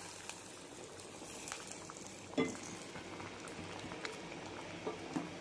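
Sambar, a thick lentil and vegetable stew, boiling in a pot at a full boil, with scattered bubbles popping; one louder pop about two and a half seconds in.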